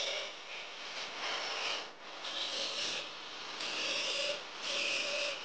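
Steel bar being filed by hand in repeated rasping strokes, about one a second, to take off its sharp corners.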